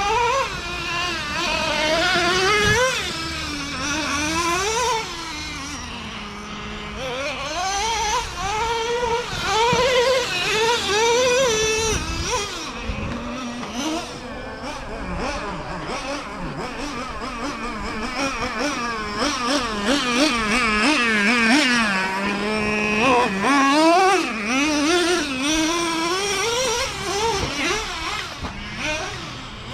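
Traxxas Revo 3.3's small two-stroke nitro engine revving up and easing off again and again as the truck is driven, its whine rising and falling with the throttle.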